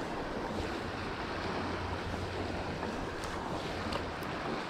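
Steady rush of a fast-flowing river running over riffles, with wind buffeting the microphone.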